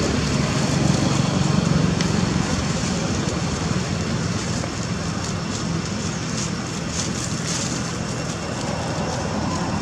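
Steady low outdoor rumble, a little stronger in the first two seconds, with a few faint crackles of dry leaves as the macaques move about.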